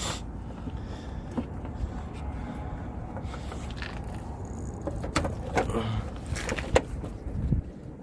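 Hands working on a car: a series of sharp clicks and knocks, thickest between about five and seven seconds in, over a low steady rumble.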